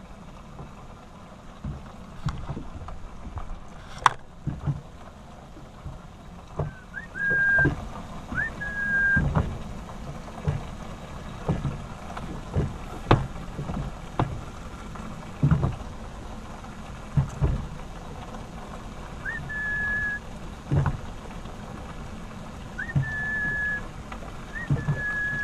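Water slapping and knocking against the hull of a small boat adrift on the sea, in irregular thuds and splashes. Short high whistles come in pairs a few times, each a quick upward flick into a held note.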